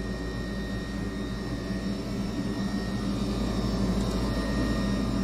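Gas furnace running steadily: the hum and thin whine of its draft inducer motor, which is worn out and had seized before being spun free by hand. It gets slightly louder about three seconds in.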